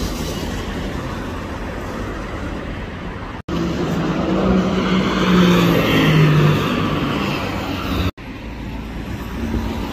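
Cars driving past on a multi-lane road: tyre and traffic noise with a sports car engine passing loudest in the middle, its pitch rising a little and then dropping. The sound breaks off abruptly twice.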